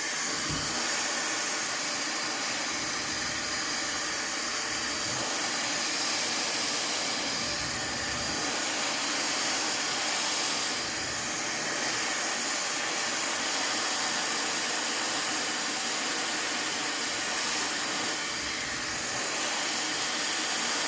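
Fentgo ionic hair dryer running steadily on its lower speed at medium heat, a continuous rush of blowing air as it dries hair. The low end of the airflow swells briefly a few times as the dryer moves.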